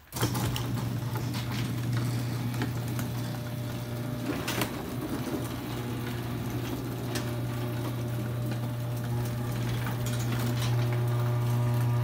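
Chain-drive garage door opener running steadily as it lowers the door: an even low motor hum with the chain and trolley travelling along the rail.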